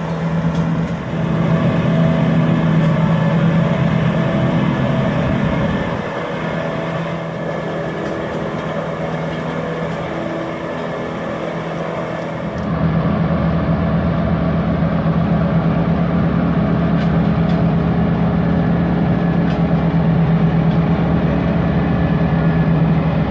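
Tractor engine running steadily under load while working a Meripeat HK-16.5 milled-peat loader, a constant low engine drone with machinery noise over it. It drops somewhat about six seconds in and comes back louder just before halfway through.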